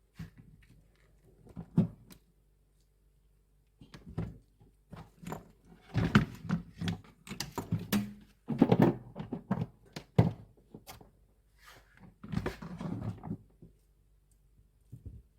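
Irregular knocks, clicks and clatter of fan parts and tools being handled during a fan motor replacement, coming in clusters with short pauses between them.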